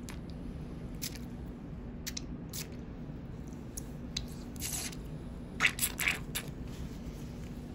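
Gloved hands packing and pressing gauze in a wet surgical wound: soft squishing and rustling with scattered light clicks, and a cluster of louder rustles about five to six seconds in.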